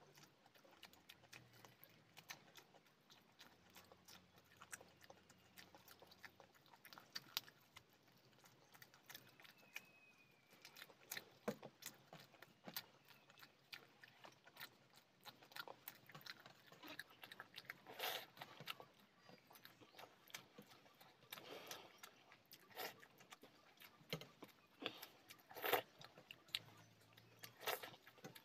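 Close-up chewing of chicken and rice: wet mouth smacks and clicks at an irregular pace, sparse at first, then more frequent and louder in the second half.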